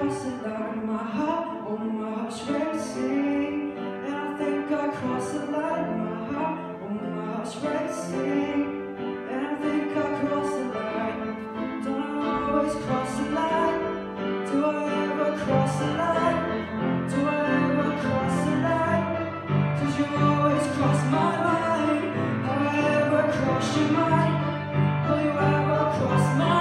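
A male voice sings a song into a microphone, accompanied by an upright piano. Deeper piano notes come in stronger about halfway through.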